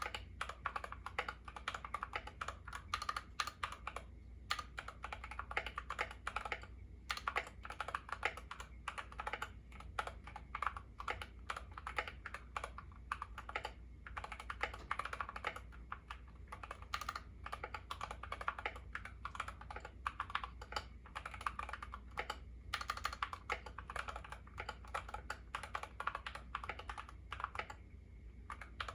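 Fast continuous typing on a YUNZII KC68 mechanical keyboard with lubed Gateron Yellow linear switches and XDA keycaps: a dense run of key clacks with a few brief pauses, stopping just before the end.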